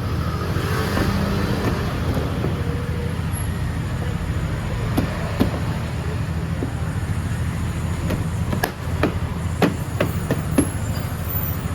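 A small engine running steadily with a low hum, with a series of sharp clicks and knocks in the second half.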